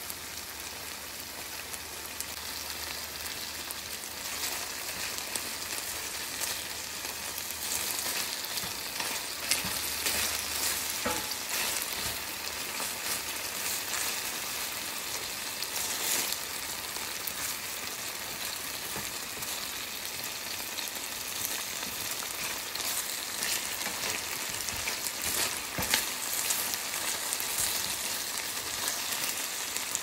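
Chicken tocino sizzling in vegetable oil in a nonstick frying pan, with scattered sharp pops of spattering oil, and a wooden spatula stirring the pieces. The sizzle grows louder over the first several seconds.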